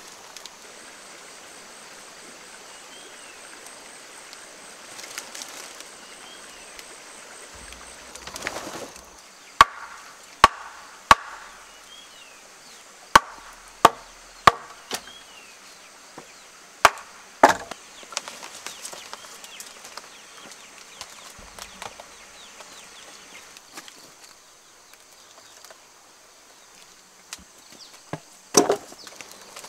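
Sharp wooden knocks, about nine of them spread over several seconds, as an old wooden shed frame is taken apart, then a longer clatter of old boards near the end.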